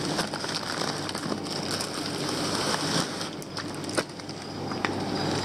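Plastic fish bags crinkling and rustling as they are handled and lifted out of a styrofoam shipping box, with irregular small crackles and clicks.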